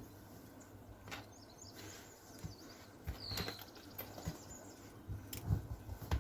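Scattered light taps and clicks of objects being handled, several close together near the end, with a short high squeak about three seconds in.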